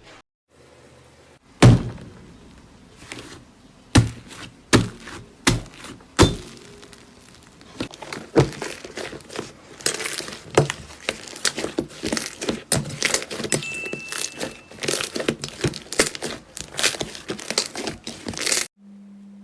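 Crunchy material being cracked and crushed: a few separate sharp cracks, then a dense run of rapid crackling and snapping that stops suddenly near the end.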